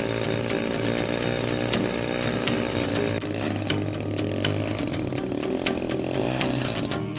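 Seagull Super Chipmunk RC model plane's engine running at high speed, its pitch shifting a little about three seconds in and cutting off near the end.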